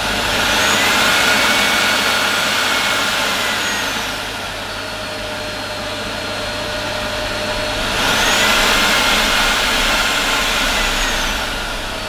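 Tineco Pure One S12 cordless stick vacuum running, its motor whine changing with manual suction control. It rises to a higher, louder setting right at the start, drops to a lower setting about four seconds in, rises again around eight seconds, and drops back near the end.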